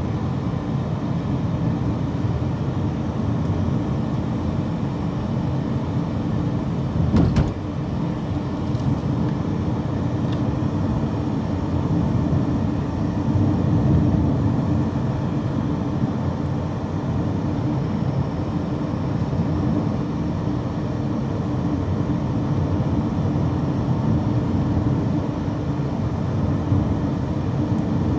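Car interior noise while driving: a steady low hum of tyres and engine heard inside the cabin, with one short thump about seven seconds in.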